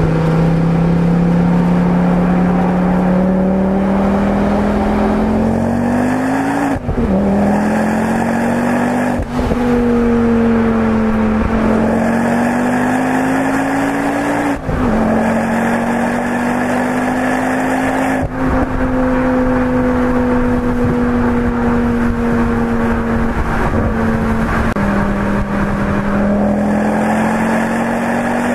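Tuned Ford Focus RS with an aftermarket exhaust, recorded close to the car at speed: the engine pulls up through the revs and shifts up several times, each change a short sharp break in the note. Between shifts it holds a steady high-revving drone, over constant road and wind noise.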